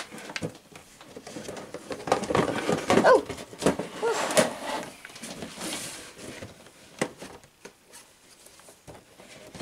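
Handling noise from a plastic tub lid and a cardboard shoebox being moved and opened: knocks, scrapes and rustles. The busiest stretch is from about two to five seconds in, followed by scattered light taps.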